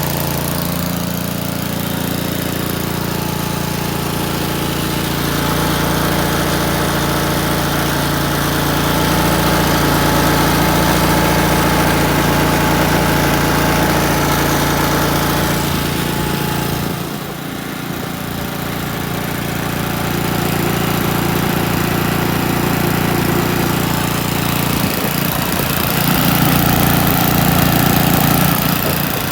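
Kubota petrol generator's engine running steadily, freshly started from stone cold on the first pull, briefly quieter about 17 seconds in.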